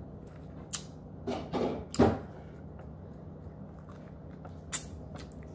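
Eating noises close to the microphone: a few sharp mouth clicks, with a louder noisy burst of chewing about two seconds in.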